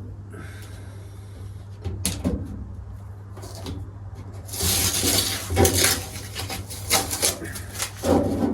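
Knocks and clatters of things being handled, with a stretch of scraping noise and repeated knocks from about halfway through, over a steady low hum.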